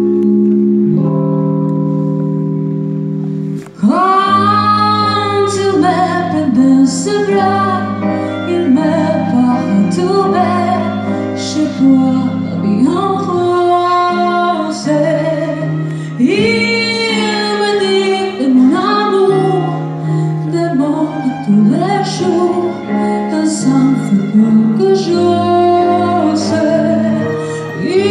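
Live band playing a Latin-groove arrangement. Sustained keyboard-like chords open it, then about four seconds in a woman starts singing with vibrato over a moving bass line.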